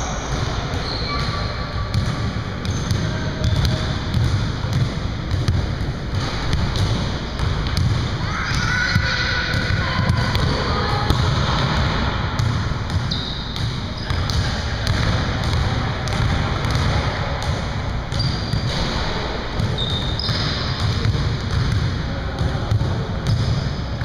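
Basketballs bouncing on a hardwood gym floor, with short high sneaker squeaks and players' voices in the background.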